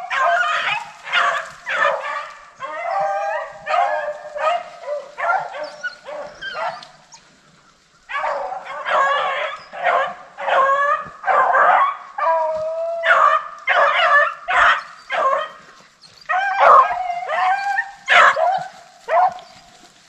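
A pack of rabbit-hunting dogs baying and barking in a running chorus, several voices overlapping at different pitches, easing off briefly about a third of the way in and then picking up again: the sound of the dogs on a swamp rabbit's trail.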